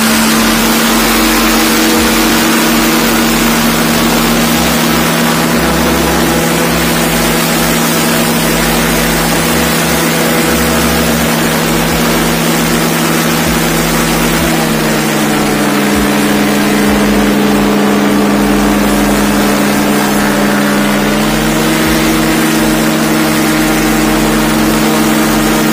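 Engine running at a steady speed, loud and close, over a constant rushing hiss; its pitch drops about fifteen seconds in as it slows, then rises again a few seconds later.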